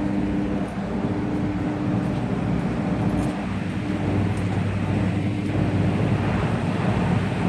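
Rooftop air-conditioner condensing units running: a steady electrical hum with a low rumble beneath.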